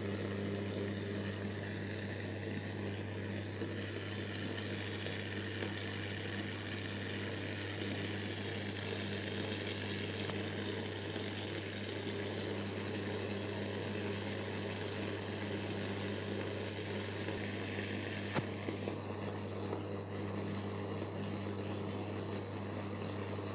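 Electric steam vaporizer running: a steady low hum with a constant hiss of steam. A faint click about eighteen seconds in.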